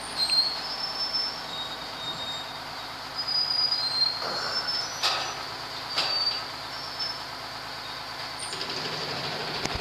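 Boat hoist lowering a Challenger 23 sailboat in its slings: steady machinery noise with scattered short high squeaks and two sharp clicks about five and six seconds in.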